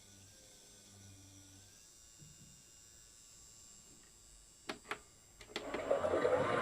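Miele Softtronic toy washing machine during its wash program: a faint hum, then a few sharp clicks about two-thirds of the way in. Right after them its small motor starts up and quickly grows louder near the end.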